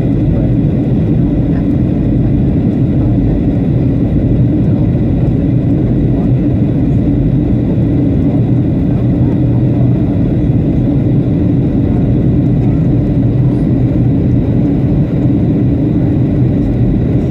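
Airliner cabin noise from a window seat: the steady low rumble of jet engines and airflow, with a faint steady high whine above it.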